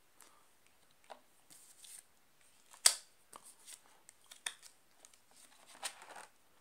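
Small laminated number cards being pressed onto and pulled off the velcro dots of a binder page: a few sharp clicks and short rasps, the loudest about three seconds in, then a page of the binder being turned near the end.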